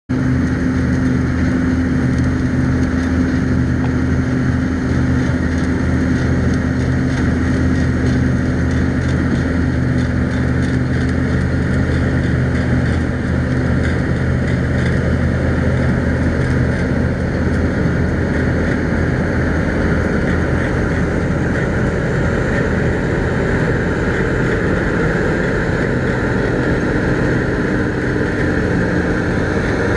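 New Holland TX34 combine harvester running steadily while cutting winter barley: a constant diesel engine drone under the steady whir of the cutting and threshing machinery.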